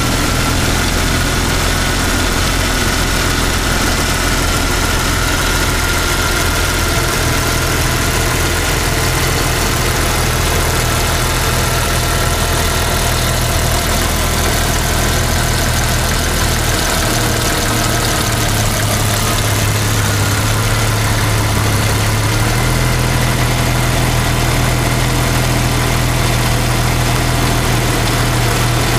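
1990 Jeep Cherokee XJ's 4.0-litre inline-six idling steadily, running on freshly installed fuel injectors. Its idle note steps up slightly about two-thirds of the way through.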